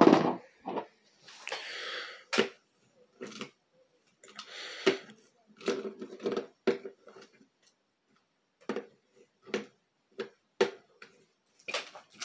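Small plastic Happy Meal toy being handled and tried out on hard surfaces: a scattered series of light clicks and knocks, with a couple of short scraping rushes.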